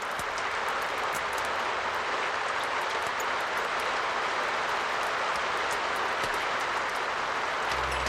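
Heavy rain falling in a steady, even hiss, with faint crackles of a wood fire over it. A low, steady drone of ambient music comes in near the end.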